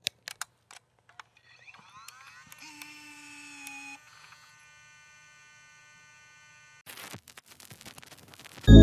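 Quiet electronic clicks and tones: a few sharp clicks, then a rising sweep that settles into steady high tones, fading to faint tones, and a quick run of clicks near the end.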